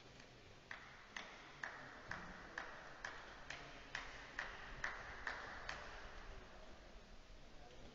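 A tennis ball bounced repeatedly, about twelve sharp strikes at a steady two or so a second, stopping about six seconds in.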